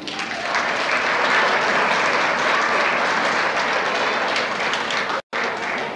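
Audience applauding steadily, with the sound dropping out for an instant about five seconds in.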